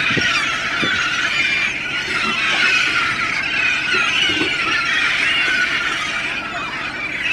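A large flock of gulls calling all at once: a continuous, dense chorus of many overlapping high, wavering cries.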